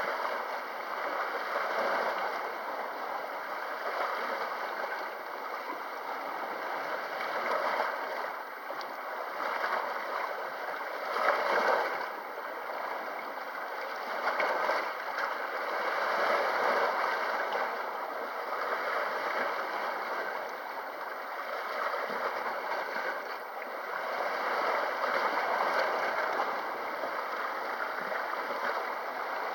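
Sea water washing against the shore: a continuous rushing and gurgling that swells and eases every few seconds, strongest about eleven seconds in.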